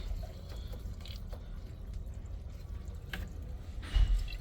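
Faint clicks and taps from opening a water heater's drain valve with a garden hose attached, over a low rumble, with a low thump about four seconds in.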